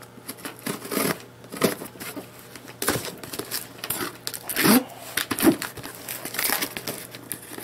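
Scissors cutting through clear packing tape on a cardboard box: an irregular run of snips, crackles and tape tearing, with the cardboard rustling under the hands.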